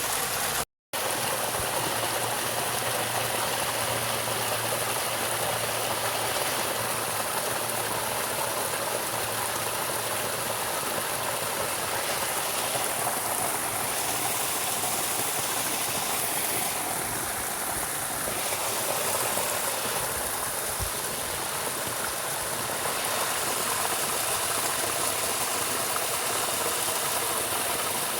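Steady rushing of flowing water, like a stream, with a brief total dropout about a second in.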